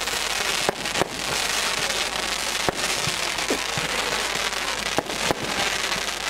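Consumer fireworks being fired: a dense, continuous hiss and crackle with about six sharp bangs scattered through it as the shots go up and burst.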